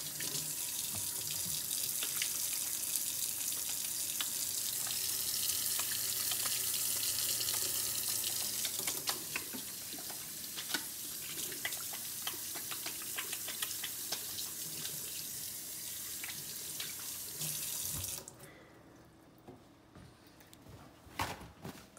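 Kitchen faucet running into a stainless-steel sink as hands are washed under the stream, with small splashes. The water shuts off about eighteen seconds in, leaving a few soft knocks and handling sounds.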